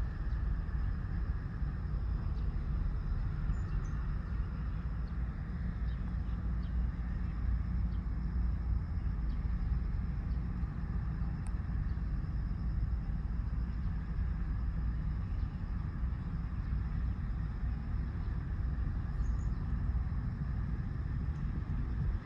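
Steady low rumble of background engine noise, even throughout; no whistle sounds.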